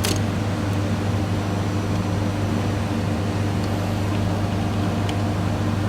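Steady low electrical hum of low-voltage switchgear, a deep even drone with higher overtones that does not change.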